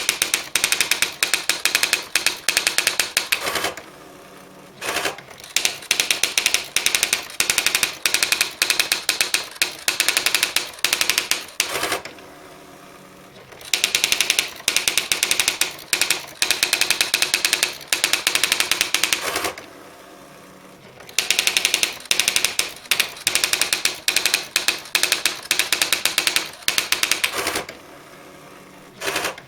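Olivetti ET 55 electronic daisy-wheel typewriter printing its demo text by itself: long runs of rapid, sharp character strikes, broken by four short pauses.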